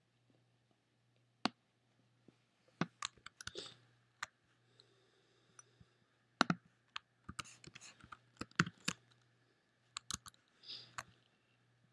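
Irregular, scattered clicks and key presses on a computer, faint, over a faint steady low hum.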